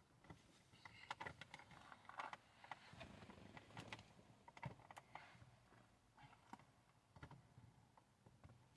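Faint, scattered clicks and rustles of a plastic dashboard air vent being handled and pressed into place, busiest in the first half.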